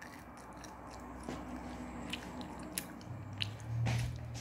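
Close-up chewing of a hard white chocolate bar: scattered sharp clicks and crunches from biting and chewing. A low hum comes in during the second half, loudest near the end.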